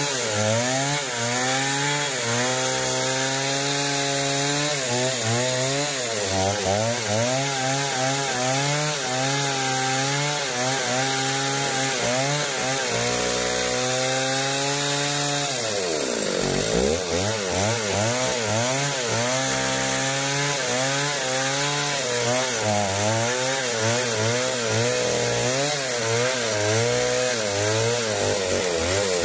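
Stihl two-stroke chainsaw at full throttle, cutting through a large log, its pitch wavering up and down as the chain loads and unloads in the wood. About halfway through it bogs down sharply, then picks back up.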